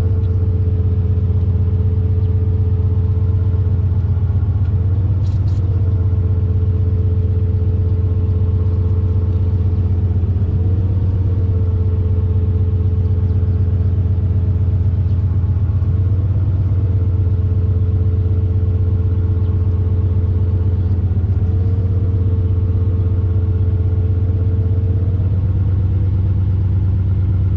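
Motor grader's diesel engine running steadily, with a brief dip in pitch about every five or six seconds.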